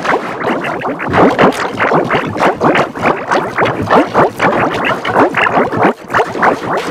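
Cartoon soundtrack played in reverse and pitch-shifted with a 'G Major' effect: a loud, garbled stream of quick warbling sweeps, several a second, with no recognisable words.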